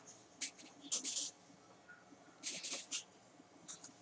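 Faint computer mouse clicks and short rustling handling noises, a few scattered bursts, as a menu is clicked open.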